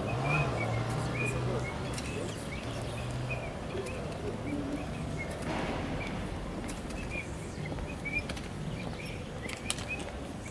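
Birds chirping over and over in short high notes, with a few sharp clicks and a low steady hum in the first few seconds.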